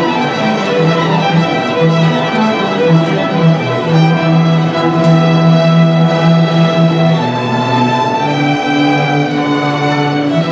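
Youth orchestra playing, bowed strings to the fore, with long held notes over a sustained low line.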